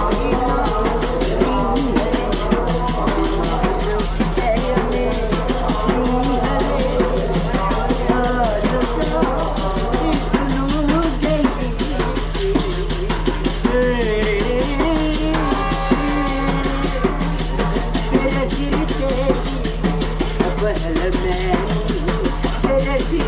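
Live party music on a passenger train: voices singing to a drum and tambourine, with fast steady percussion, over the train's steady low rumble.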